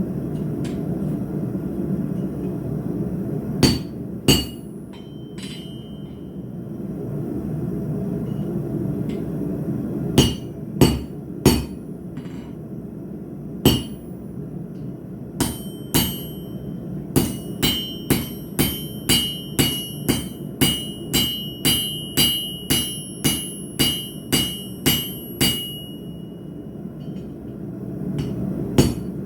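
Hammer striking steel on an anvil while forging: a few separate blows, then a steady run of about two ringing strikes a second that stops near the end. A steady low rushing sound runs underneath, strongest in the first ten seconds.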